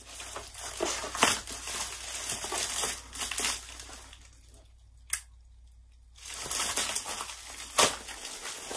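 Plastic bubble mailer and its bubble-wrap lining crinkling and rustling as a plastic-wrapped calendar is pulled out of it. The rustling comes in two spells with a quiet lull about halfway that holds one sharp click.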